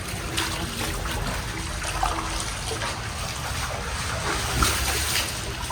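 Footsteps splashing irregularly through shallow water over a steady trickle of running water.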